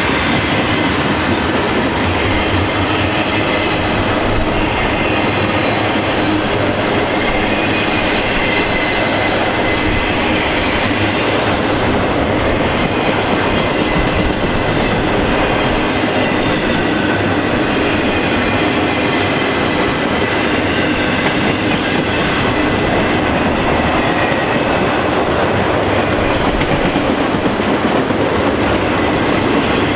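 Canadian National freight train's cars rolling past on the track, a steady, continuous clatter of wheels on rail.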